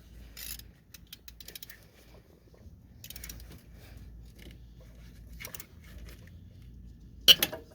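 Scattered metal clicks and clinks of hand tools on a stud puller set, with a short run of quick ticks near the start and a sharper metallic clack near the end.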